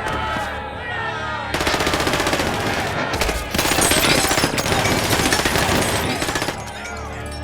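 Rapid automatic gunfire: long bursts of fast, evenly spaced shots, the longest running from about a second and a half in until it stops about six and a half seconds in.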